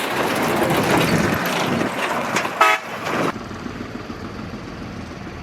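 A short vehicle horn beep about two and a half seconds in, over a loud, steady noise. The noise stops abruptly about half a second after the beep, leaving a quieter background.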